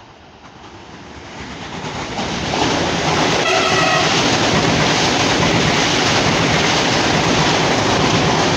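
CPTM Series 9500 electric multiple unit approaching and passing at speed, its running noise building up over the first few seconds and then holding loud and steady as the cars go by. A single short horn blast sounds about three and a half seconds in.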